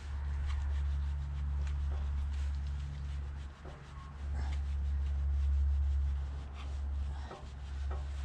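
A cloth rubbing and scrubbing over a motorcycle's drive chain and rear sprocket, wiping off degreaser and WD-40, over a steady low rumble.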